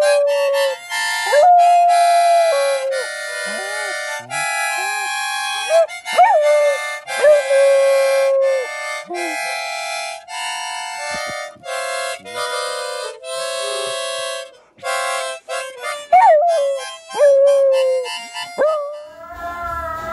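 A harmonica plays held chords, about one to two chords a second, while a dog howls along in several long howls that swoop up and down in pitch.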